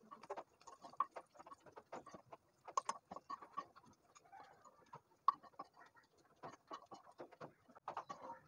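Steel spoon scraping and tapping against a non-stick kadai and a plate while roasted cashews and raisins are scooped out of hot ghee: faint, irregular clicks and scrapes, with a few sharper taps.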